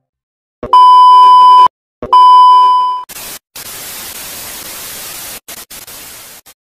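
Two loud, steady beeps of about a second each, the test tone that goes with TV colour bars, then a few seconds of quieter TV static hiss that cuts out briefly a few times and stops suddenly near the end.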